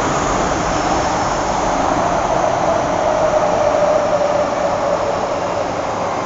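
Interior running noise of an MTR first-generation M-Train electric multiple unit: a steady rumble and hiss of the train moving on the track, with a whine that grows and sinks slightly in pitch around the middle.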